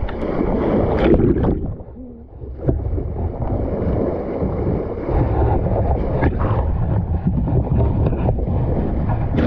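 Bow wave of a sailboat under way, water rushing and splashing against the hull through open-sea swell, with wind buffeting the microphone. The sound drops away briefly about two seconds in, then comes back.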